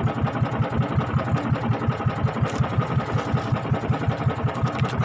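Small fishing boat's engine idling steadily, with an even pulsing beat several times a second.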